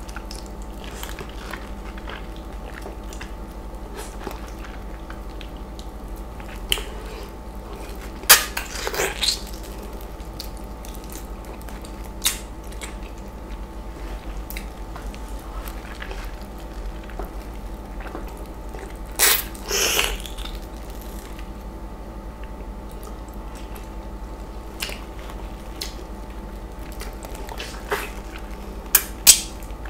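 Messy eating sounds of a ripe, juicy East Indian mango: wet bites and chewing of the flesh, bitten straight off the fruit held in the hands. The sounds come sparsely, with loud wet clusters about 8 seconds in, about 19 seconds in and near the end, over a steady low hum.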